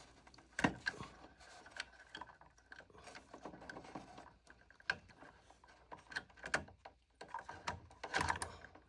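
Irregular small clicks and taps of wire connectors and terminal hardware being handled while wires are fitted to a treadmill controller board, with a busier run of clicks near the end.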